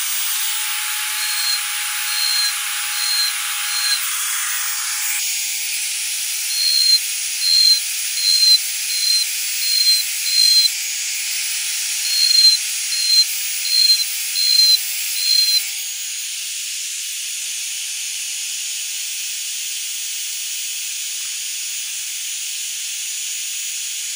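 Handheld rotary tool running with a steady high whine, its fine bit cutting tread grooves into a small wooden wheel in a series of short scraping strokes, roughly one and a half a second. The strokes stop about sixteen seconds in while the tool keeps running.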